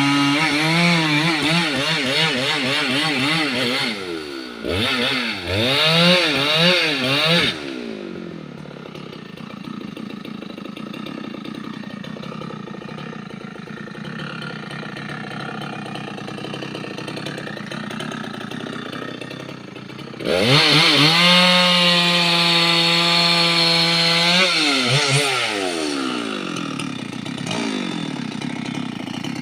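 Two-stroke chainsaw running and cutting timber, its engine pitch rising and falling under the throttle. After about 7 seconds it drops back to a quieter idle. Around 20 seconds in it revs up again for a steady cut of a few seconds, then falls away.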